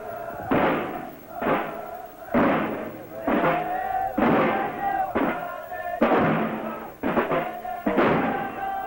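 Snare drums beaten by a scout drum corps, with a crowd of voices shouting in rhythm about once a second.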